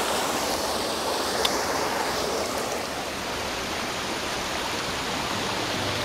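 Shallow forest stream running over rocks and small cascades: a steady, even rush of water, with one faint click about a second and a half in.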